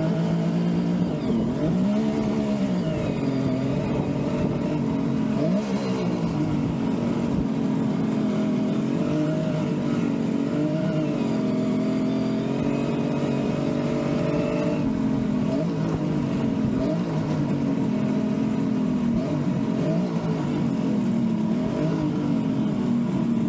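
Kawasaki H1 Mach III's three-cylinder two-stroke engine running at low speed as the bike is ridden at walking pace, its revs rising and falling every second or two as the throttle is opened and eased off.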